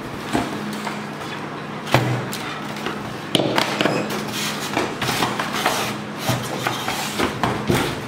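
Packaging being handled: clear plastic bag crinkling and cardboard box rustling as a bagged coffee machine is lifted out and set down, with a thump about two seconds in and a busy run of knocks and rustles from about three and a half seconds on.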